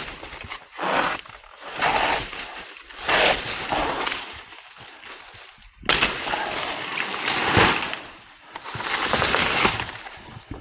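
Machete chopping into a banana plant and slashing through its dry leaves: a series of hacks with crackling, rustling leaf noise between them, the sharpest blow about six seconds in.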